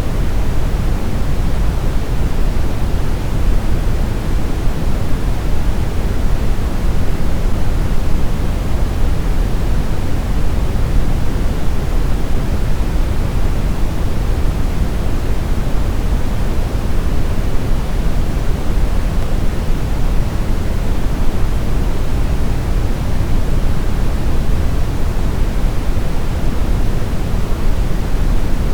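Steady brown noise: a smooth, deep rushing hiss, strongest in the low end and unchanging.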